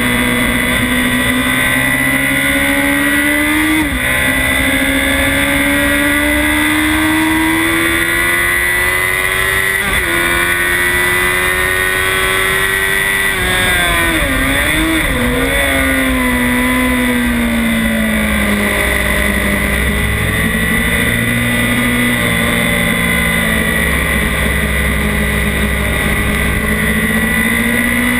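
Onboard sound of a Honda CBR1000RR's inline-four engine at speed. The revs climb with brief dips at upshifts about 4 and 10 seconds in, waver through quick throttle blips on downshifts around 14 seconds, then fall away and climb again near the end, over steady wind noise.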